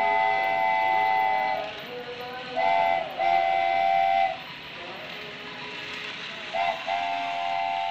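Toy steam train's electronic steam-whistle sound, a chord of steady tones: one long blast, then a short toot and a longer blast, then another short toot and a long blast near the end. Underneath is the steady running noise of the toy train on plastic track.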